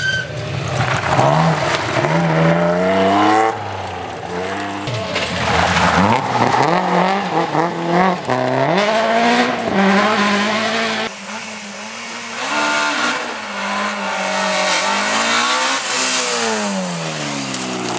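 Rally cars passing one after another at full throttle, engine revs climbing and then dropping sharply between gears and when lifting off for the bend, with tyres scrabbling on loose gravel. Near the end a BMW 1 Series rally car passes close, its engine revs rising and then falling away.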